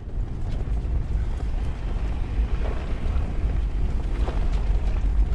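Toyota 4x4 driving slowly onto a dirt off-road trail: a steady low rumble of engine, tyres and wind, with a few faint small clicks.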